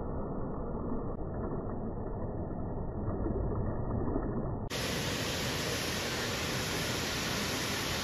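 Steady rush of flowing water at a waterfall pool, dull and muffled at first, then brighter and fuller after a sudden change about two-thirds of the way through.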